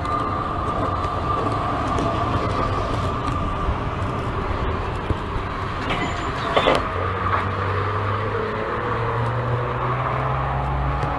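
Articulated tram running alongside at close range, with a steady hum and one sharp metallic clank about two-thirds of the way through. Near the end, a faint motor whine rises slowly in pitch.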